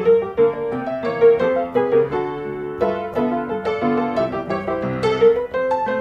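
Background music: a light piano tune with a quick, even run of notes.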